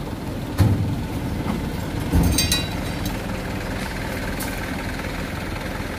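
Truck engine idling steadily, with a knock shortly after the start and another knock with a brief high squeak about two seconds in.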